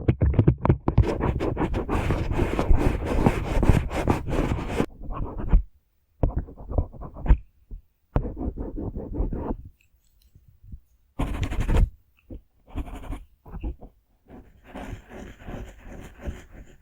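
Brush bristles scratching in quick brushing strokes: a dense continuous run for about five seconds, then shorter bursts with brief silent pauses between them.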